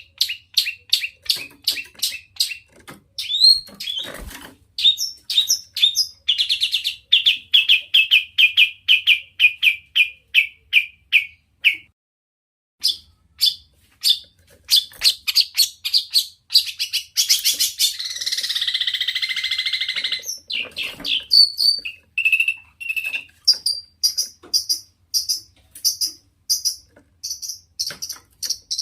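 Long-tailed shrike (cendet) singing in rapid series of sharp, repeated high notes, each series on its own pitch. The song stops for about a second around twelve seconds in, and a harsh, scratchy chatter runs for about three seconds two-thirds of the way through.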